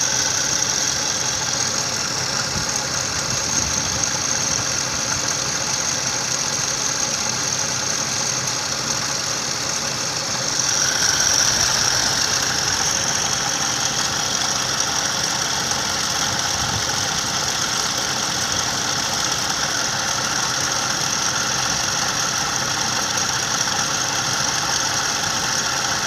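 Toyota 2JZ straight-six engine idling with a steady high-pitched whine from the fan belt's auto-tensioner pulley, the noise of a failing pulley bearing. The whine swells a little louder about eleven seconds in, then settles.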